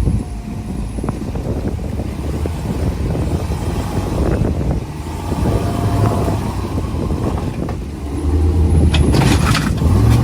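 A truck driving slowly over rough, washed-out ground, its engine running with steady crunching and knocking from the tyres and body. The engine gets louder about eight seconds in.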